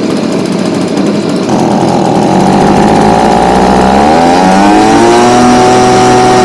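Stihl BG55 leaf blower's small two-stroke engine running on a newly fitted carburetor, revving up from a low speed about three and a half seconds in and holding at full throttle.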